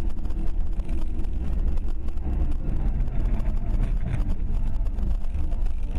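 Steady low rumble of a car's engine and tyres on the move, heard from inside the cabin.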